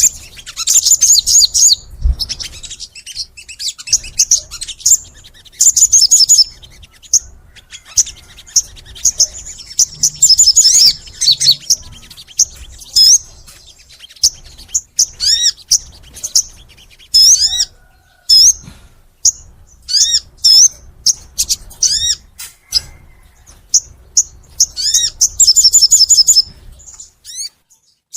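A sogon songbird singing in long, energetic bouts of rapid, very high-pitched chirps and trills, mixed with repeated short arching whistled notes and broken by brief pauses.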